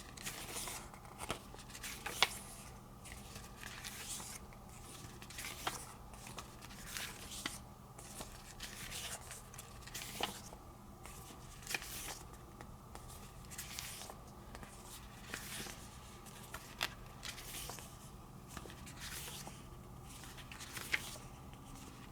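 Pages of a paper collector's booklet being turned by hand: soft, brief rustles and flicks at an irregular pace of about one a second, over a faint steady room hum.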